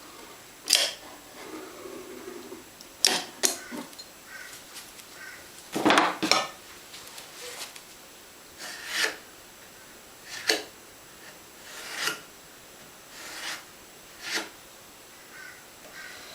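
Hands working with foam riser pieces and tools: scattered knocks and taps with short scraping rubs, the loudest cluster about six seconds in.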